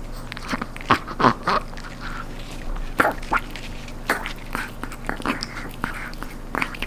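A Chihuahua crunching and gnawing a crispy dried duck leg-joint treat, with irregular sharp cracks and crunches, the loudest about a second in and about three seconds in.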